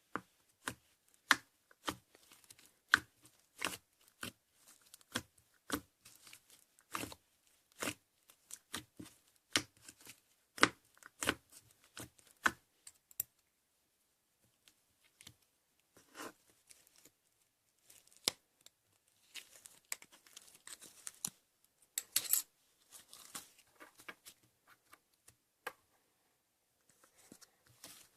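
Slime being pressed and stretched by hand, making sharp pops and clicks about one to two a second, then a short stretch of denser crackling about two-thirds of the way through.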